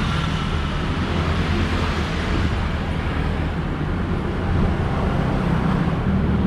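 Steady street traffic noise: passing cars and scooters running as a continuous low rumble.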